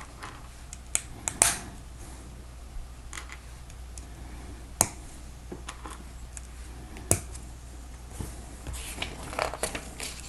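Plastic Lego pieces being handled and pressed together: a few sharp clicks, the loudest about one and a half seconds in and around five and seven seconds, with light rattling and rustling of parts between.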